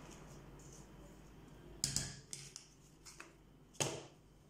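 About four light clicks and taps of kitchen utensils: a spoon knocking in a small food chopper's metal bowl and a small dish being set down on the table.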